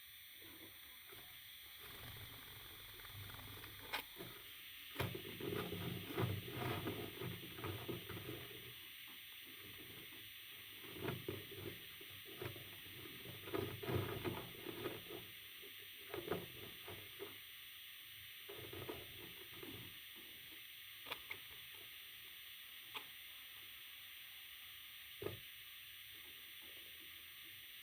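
Soft rustling and scratching in irregular bursts, with scattered small clicks and a faint steady hiss underneath.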